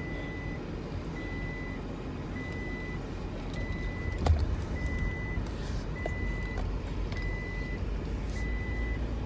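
A car's in-cabin warning chime beeping steadily, a single high tone repeated about eight times, a little over once a second, over the low rumble of the car. There is one short knock about four seconds in.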